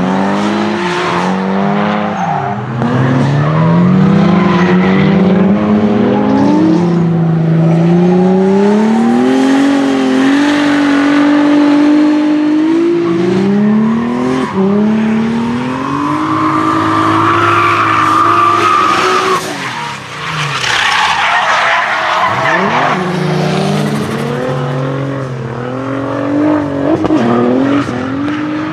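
Nissan 200SX S13 drift car with a swapped-in VR38DETT twin-turbo V6 revving up and down through long drifts, its pitch rising and falling again and again over the screech of sliding tyres. A high tyre squeal stands out about halfway through.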